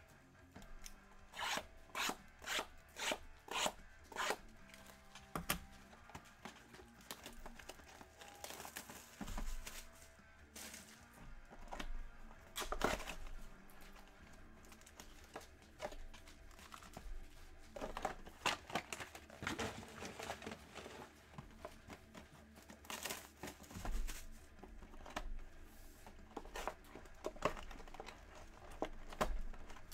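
Wrapping on a sealed Panini Prizm Draft Picks trading-card box being torn off and crumpled: a string of short, irregular rips and crinkles.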